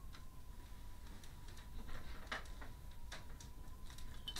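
Faint, irregular light clicks and taps of small objects being handled on a workbench, a little louder about two seconds in and again near the end, over a thin steady high-pitched whine.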